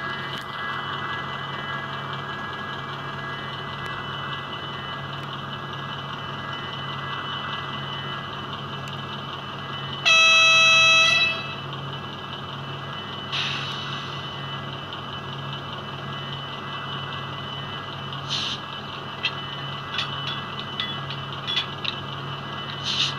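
Sound-decoder diesel engine of a Brawa HO Vossloh Gravita model locomotive idling through its small onboard speaker, a steady low pulsing hum. About ten seconds in the horn sounds once, loud, for a little over a second; a short hiss follows a couple of seconds later, and light clicks come scattered near the end.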